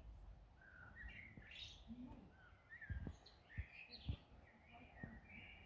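Faint songbirds chirping and twittering in short repeated phrases, with a few dull low thumps in the second half.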